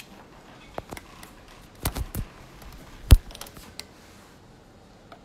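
A scatter of sharp clicks and taps from small objects being handled, with a close cluster about two seconds in and the loudest single click about three seconds in.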